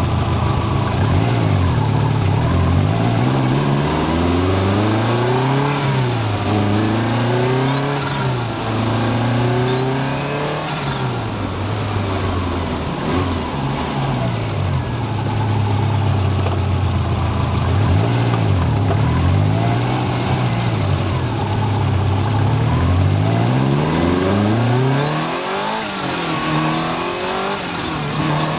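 Subaru Impreza GC8's turbocharged flat-four engine revving up and down repeatedly. Several times, as the revs climb, a high-pitched whine rises and falls above it. This is the abnormal noise of a worn IHI VF28 turbocharger that sounds once boost comes on, at nearly 150,000 km, which the owner takes as due for replacement.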